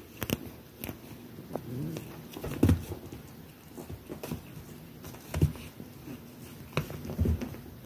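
A cat nosing and pawing at a cloth bedspread: soft rustling and scattered clicks, with three short, louder low thumps spread through.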